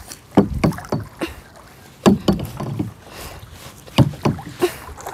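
Paddle strokes from a small rowboat in shallow floodwater: a boy's single paddle dipping and pulling, giving three runs of quick knocks and splashes, a few strokes in each run.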